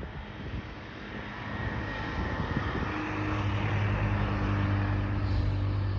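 An engine running with a steady low hum that grows louder from about halfway through.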